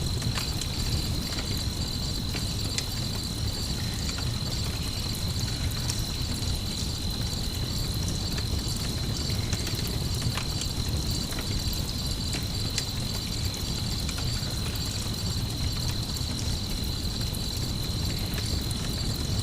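Night ambience with crickets chirping in a steady high trill over a low, even rumble, while a campfire gives occasional sharp crackles and pops.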